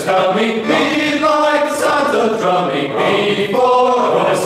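A choir of male voices singing a song together in harmony, with drawn-out held notes.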